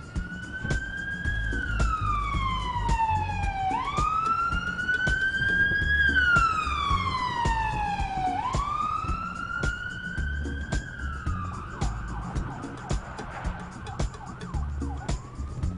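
Emergency vehicle siren wailing, its pitch rising and falling in long, slow sweeps. About eleven seconds in it turns to a flatter, wavering tone, then starts a new rise near the end.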